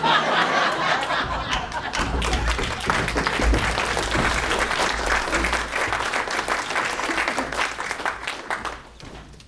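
Live audience applauding: dense clapping that breaks out suddenly and dies away about nine seconds in.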